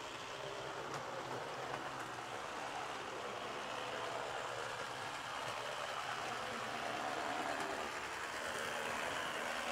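HO scale model steam locomotive running on the layout track: a steady whirring rattle of its motor and wheels, growing a little louder toward the end. It is running rough: it sounds terrible and needs a tune-up.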